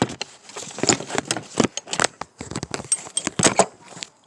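Metal tools and parts clinking and clattering, a quick irregular run of sharp knocks and jingles, as in handling sockets, studs or washers during engine work.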